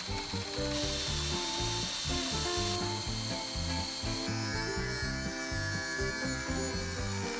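Background music over power-tool work on an aluminium spinnaker pole: a cordless drill drilling out the end fitting's rivets, then, from about four seconds in, an angle grinder whining as it cuts the aluminium pole end.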